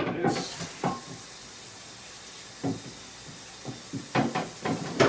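Kitchen tap running in a steady hiss, with knocks and clatter of things handled at the sink.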